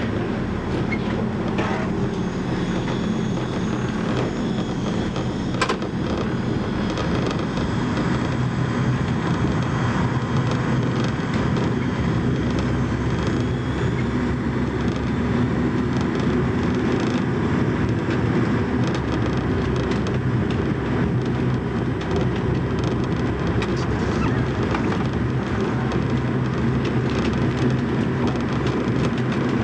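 Diesel railbus running along a branch line, heard from the driver's cab: a steady engine drone with wheel and rail noise, and a single sharp click about six seconds in.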